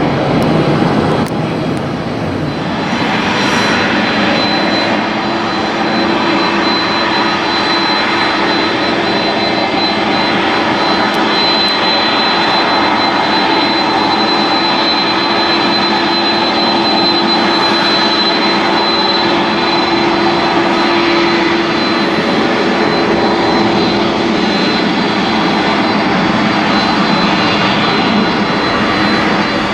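Jet airliner engines running steadily, a dense rushing noise with a high whine held over it and a lower hum beneath.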